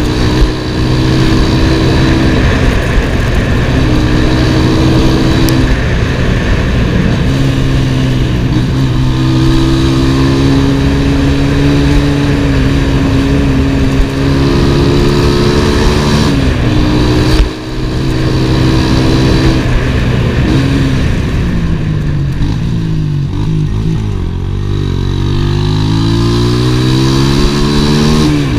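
Zamco motorcycle engine running under way, its revs stepping up and down with gear changes, with a brief drop off the throttle a little past halfway and the revs falling then climbing again near the end. Wind rushes over the microphone.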